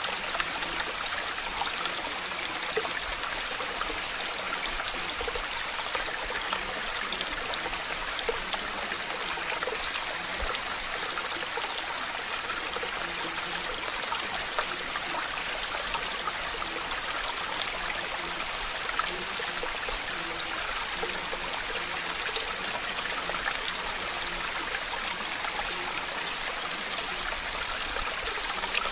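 Steady water ambience: an even wash of water noise with faint scattered drip-like ticks throughout.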